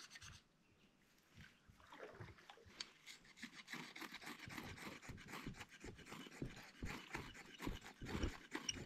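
Irregular rustling and scraping from handling tinder and sticks to start a campfire, becoming busier after about two seconds.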